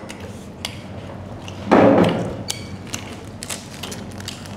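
Tableware noises at a meal: a few light clicks and one short ringing clink of dishes, with a single dull thump about two seconds in, the loudest sound.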